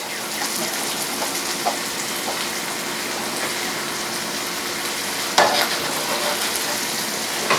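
Mushroom and Marsala wine sauce sizzling steadily in a hot sauté pan as it cooks down, rising suddenly louder about five and a half seconds in.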